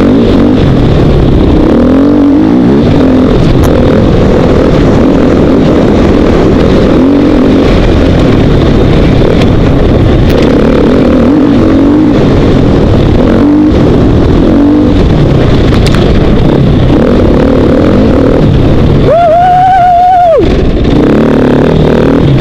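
KTM 450 XC-W dirt bike's four-stroke single-cylinder engine running hard on a rough trail, loud and close, its pitch rising and falling with the throttle. Near the end the engine note jumps sharply higher and holds for about a second before dropping back.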